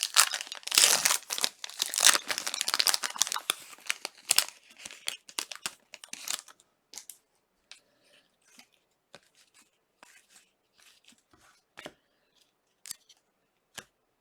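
A trading card pack wrapper being torn open, a dense crinkling tear for the first four seconds or so, then sparse rustles and clicks as the cards are handled.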